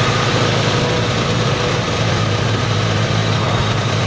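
2006 Toyota 4Runner engine idling steadily, heard from beneath the vehicle, while it warms the automatic transmission fluid for a level check.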